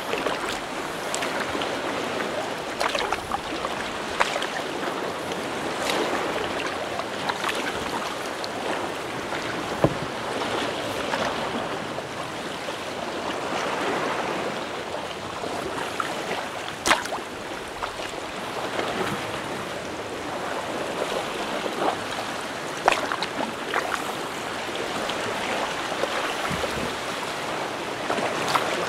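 Sea water sloshing and splashing around a kayak, with scattered brief sharp splashes or knocks.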